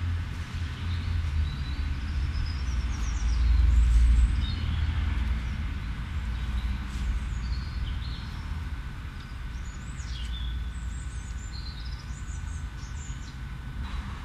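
Outdoor ambience: a low steady rumble, loudest about four seconds in, with small birds chirping and twittering over it.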